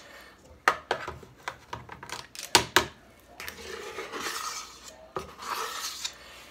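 A spoon scraping batter around a stainless steel mixing bowl, with several sharp clinks against the bowl's side, the loudest a pair about two and a half seconds in.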